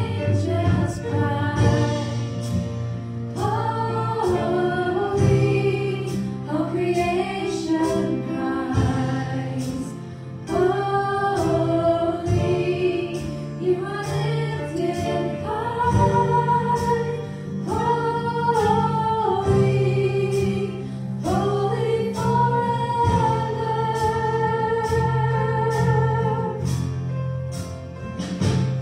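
Church worship team singing a contemporary worship song, a woman's and a man's voice holding long notes, over keyboard and band accompaniment with a steady beat.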